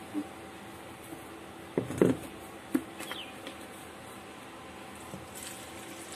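A hand mixing oil into whole-wheat flour in a stainless steel bowl, with a few sharp knocks against the bowl, the loudest about two seconds in, over a steady background hum.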